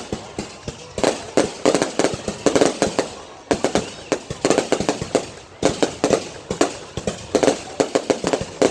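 Fireworks going off: rapid clusters of sharp bangs and crackles, volley after volley with short gaps between them.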